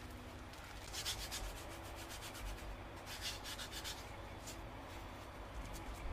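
Spatula scraping and stirring stiff almond cookie dough and flour against the side of a glass bowl, in repeated strokes, with two louder runs of scraping about one and three seconds in.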